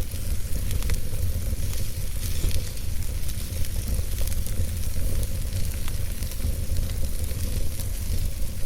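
Campfire burning with a steady hiss and scattered sharp crackles and pops, over a steady low rumble.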